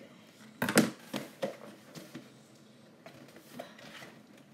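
Cardboard Lego box being cut and pulled open with scissors: a sharp snap or knock just under a second in, then several lighter clicks and rustles of cardboard.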